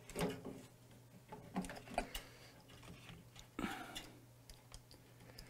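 Faint scattered clicks, knocks and plastic rustling from hands handling the wiring and plastic housing of a microwave's inverter high-voltage unit as it is pulled out, with a short scrape a little past halfway.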